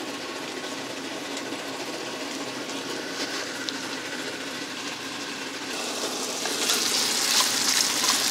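Diced pork belly sizzling in a frying pan: a steady hiss that gets louder and brighter for the last couple of seconds.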